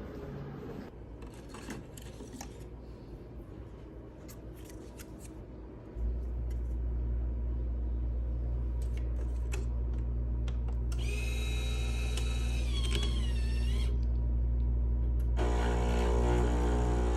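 A few light clicks, then a steady low machine hum that starts suddenly about six seconds in and runs on.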